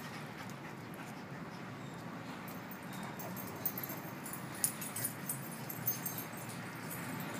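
Dogs play-wrestling: scuffling, with a few brief sharp sounds in the second half over a steady background hiss.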